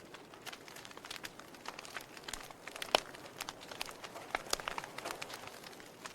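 Wood fire crackling in a fireplace: irregular sharp pops and snaps over a soft hiss, the loudest pop about three seconds in.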